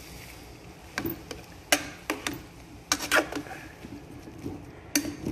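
Metal cooking spoon clinking and scraping against the side of a metal pot while stirring beans and vegetables: a handful of sharp, irregular clinks, with a quick cluster about three seconds in.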